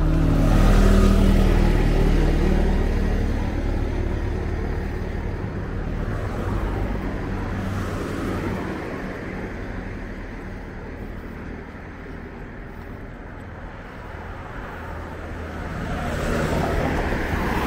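Cars driving past on a road. One passes close about a second in, with its engine hum the loudest sound, then fades. Another approaches and passes near the end.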